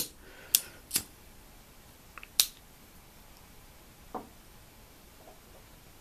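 Small sharp clicks of a slim butane lighter's flip cap being worked in the hand, three or four over the first two and a half seconds, then a single softer knock about four seconds in.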